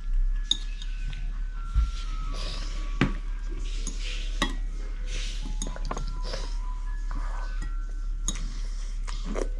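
A spoon or fork clicking and clinking against a bowl again and again while a child eats, over a steady low hum. Short light melody notes play faintly throughout.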